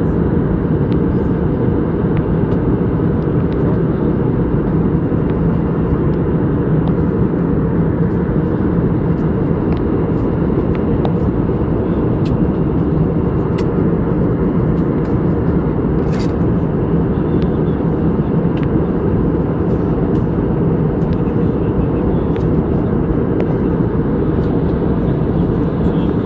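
Airliner cabin noise in flight: a loud, steady rumble of engines and rushing air, with a steady low hum underneath.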